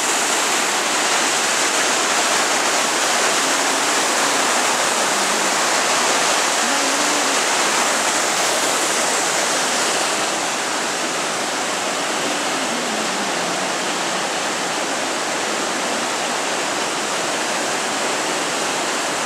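Waterfall rushing steadily: a dense, even wash of churning white water, a little quieter from about ten seconds in.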